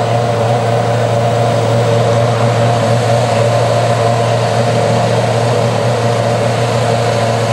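Formula 1 car's 2.4-litre V8 engine idling steadily while stationary in the pit box, a constant pitch with no revving.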